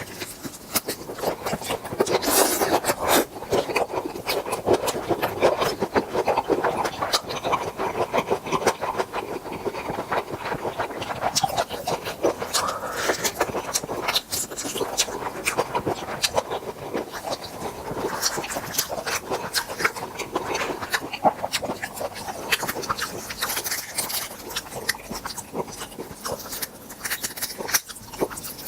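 Close-up eating sounds while feasting on grilled tiger prawns: wet chewing and lip-smacking with dense rapid clicks and crackles, continuing without pause.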